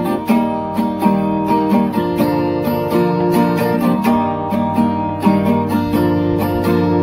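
Instrumental acoustic guitar music, strummed and plucked in a steady rhythm, with no singing.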